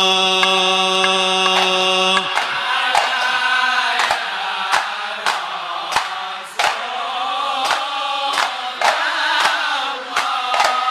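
Men chanting Ishari sholawat. A long held sung note opens, and about two seconds in hand-struck terbang frame drums come in with steady beats, roughly two a second, under the singing.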